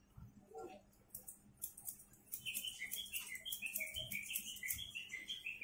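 Barber's scissors snipping rapidly over a comb as the top of a short haircut is trimmed. The quick, even run of metallic chirps gets much louder about two seconds in.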